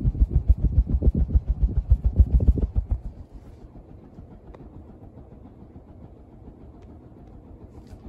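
NuTone Verandah Deluxe two-blade ceiling fan running. The passing blades buffet air against the microphone in loud, even thumps, about five or six a second, until about three seconds in. After that only the fan's quiet, steady running hum is left.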